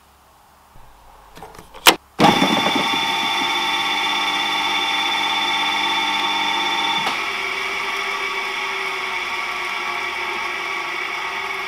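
A click, then the rebuilt three-phase electric motor of a Porter McLeod lathe starts at once on its first power-up and runs with a steady hum and whine. About halfway through, a higher whine drops out and it runs slightly quieter: it starts fine and runs pretty quiet.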